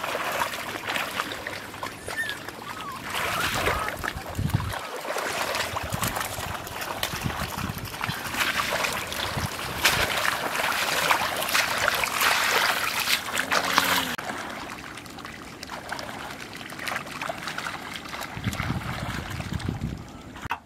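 Splashing and sloshing of feet wading through shallow water among grass, continuing throughout and busiest in the middle before easing off.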